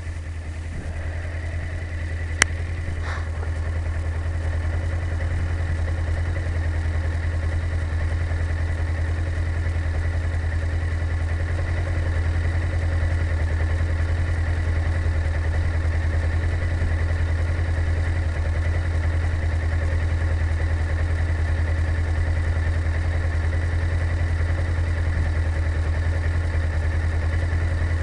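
Motorcycle engine idling steadily, heard through a camera inside the rider's helmet, with one sharp click about two and a half seconds in.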